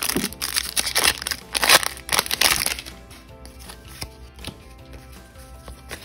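Foil Pokémon booster pack wrapper crinkling and tearing as it is opened and the cards are pulled out, for about the first three seconds. After that it is much quieter, with soft background music underneath.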